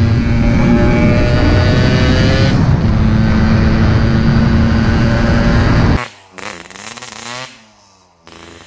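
Yamaha RX-King's single-cylinder two-stroke engine pulling under throttle, its pitch climbing, dropping with an upshift about two and a half seconds in, then climbing again. It cuts off abruptly about six seconds in, leaving a few quieter sweeping sounds.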